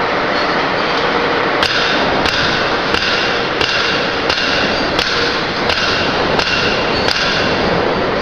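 Barrier wire mesh welding machine running with a loud steady noise, plus sharp metallic clacks in an even rhythm of about three every two seconds. The clacks start about a second and a half in and stop about a second before the end.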